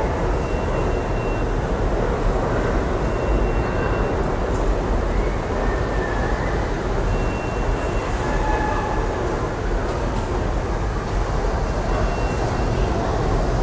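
New York City subway train running past an underground station platform: a steady loud rumble and rush of wheels on rail, with faint high-pitched tones from the train coming and going every couple of seconds.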